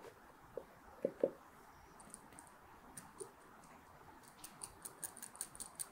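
Faint small knocks and clicks of a plastic portioner against a plastic bottle while scooping acrylic resin powder, then a run of light, quick ticks near the end as the scoop works over a small plastic cup.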